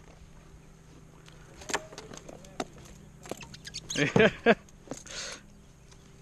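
Scattered knocks and clicks of a freshly caught redfish and fishing tackle being handled on a plastic fishing kayak, with a short vocal sound from the angler about four seconds in.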